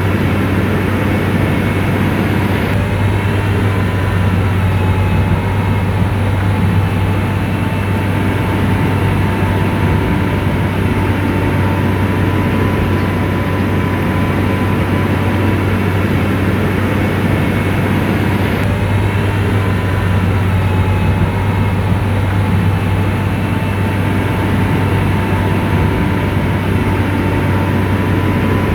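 SDLG motor grader's diesel engine running steadily: a constant low drone with a thin, steady whine above it.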